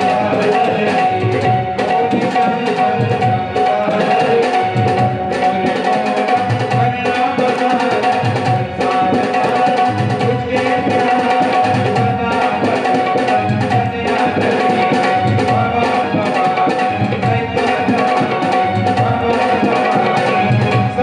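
Instrumental devotional music: tabla playing a steady, even rhythm under one long held tone and a melody line.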